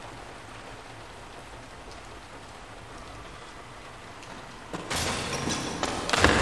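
Steady hiss of rain. About five seconds in, a louder rushing noise comes in, with a sharp hit just before the end.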